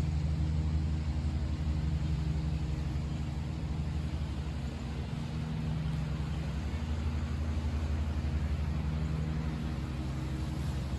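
A lawnmower engine running steadily as a low drone, with the hiss of rain over it.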